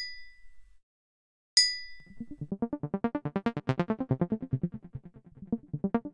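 A pen taps a ceramic mug once, giving a bright ringing ping that dies away. About two seconds in, a deep, rapidly throbbing tone starts at about nine pulses a second: the mug's ring slowed down and run through a phaser effect.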